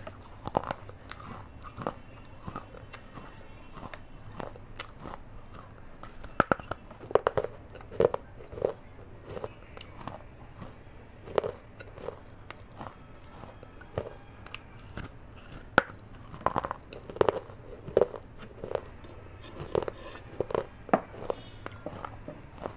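Crunching and chewing of broken baked-clay (terracotta) pot pieces, picked up close by a clip-on mic: sharp, irregular crunches and crackles as the clay is bitten and chewed, several a second in bursts.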